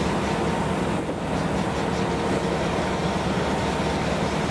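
Steady drone of a car ferry's engines under way, with an even rush of wind and water over it, heard from the open deck.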